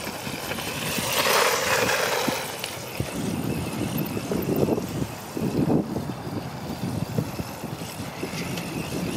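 Small electric RC truck running through slushy snow. About a second in, a whir of motor and tyres swells and fades, followed by irregular crunching and scuffing.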